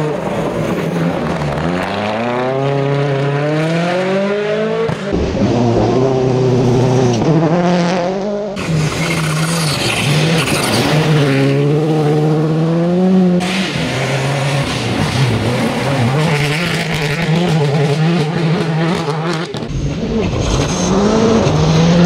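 Rally cars at full speed on a gravel stage, one after another: engines revving hard, rising in pitch and dropping back in steps through gear changes. In the middle stretches a loud hiss of gravel and stones sprays from the tyres as a car slides past.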